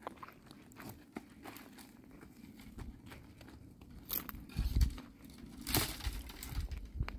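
Dry twigs and leaves crunching and crackling as they are handled, with scattered snaps, a few low thumps and one louder crack about six seconds in.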